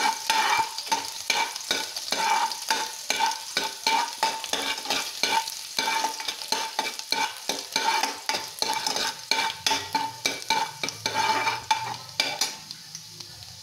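Steel ladle scraping and clinking against a stainless-steel kadai, stirring chopped garlic in hot oil at about three strokes a second, with the oil sizzling underneath. The stirring stops near the end, leaving only the quieter sizzle.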